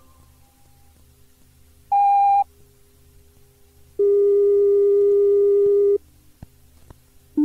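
Electronic signal tones recorded on a Shinkansen onboard-announcement cassette: a short high beep, then a steady lower tone lasting about two seconds, then a short, still lower beep at the end, with two faint clicks between, over a low tape hum.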